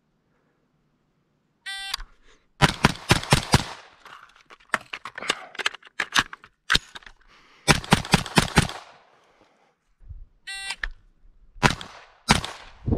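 An electronic shot-timer beep, then an AR-style carbine fired in fast strings of about six shots each, with fainter cracks between the strings. A second beep comes about ten and a half seconds in, followed by two more shots near the end.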